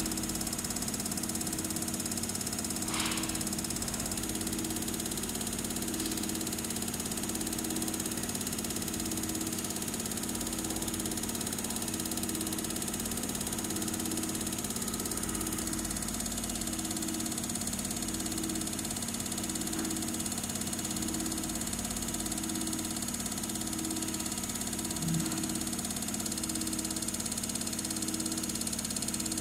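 EPS916 common-rail injector test bench running: its drive motor and high-pressure pump turn at 600 rpm, holding 135 MPa on a Denso injector during a flow measurement. A steady machine hum carries a tone that pulses on and off about once a second, with a brief click about three seconds in.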